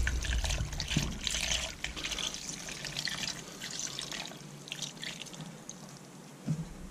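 Red wine pouring from a bottle into a stainless steel pot of chicken pieces, a steady trickling splash that thins out near the end, followed by a soft knock.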